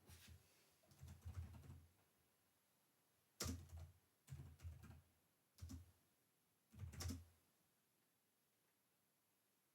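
Computer keyboard typing, faint, in several short bursts of keystrokes with pauses between them.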